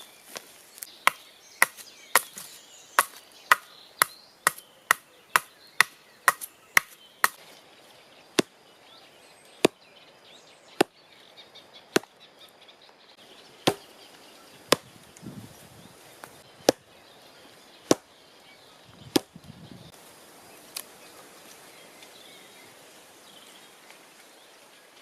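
Wood being chopped with a blade: a run of sharp, separate strikes, quick at first at about two a second, then slowing to one every second or two and stopping a few seconds before the end.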